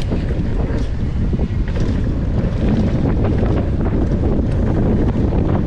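Wind buffeting an action camera's microphone during a fast downhill mountain-bike descent, a steady roar broken by frequent small knocks and rattles from the bike over bumps.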